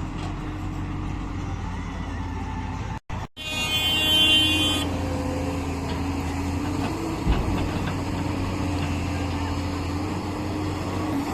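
Heavy machinery engine running steadily. About three seconds in the sound drops out for a moment, then a vehicle horn sounds for about a second and a half while the engine carries on.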